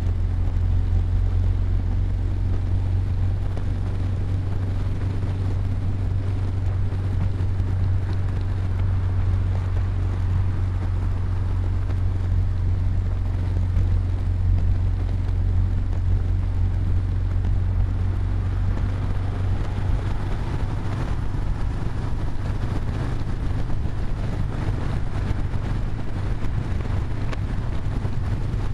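Steady drone of a car cruising at highway speed, heard from inside the cabin: a low engine and road hum under the rush of tyre and wind noise. About two-thirds of the way through, the low hum shifts slightly in pitch.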